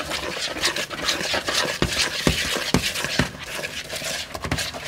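Wire whisk stirring a thick, crumbly protein pancake batter in a plastic mixing bowl: uneven scraping strokes, about two a second, with clicks of the wires against the bowl.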